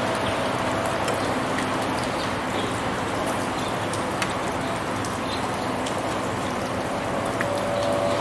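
Steady rain falling on a city street, with scattered small drip ticks.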